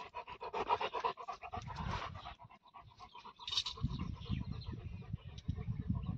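A Bully Kutta dog panting rapidly right by the microphone for the first couple of seconds, then fainter, followed by irregular low thumps.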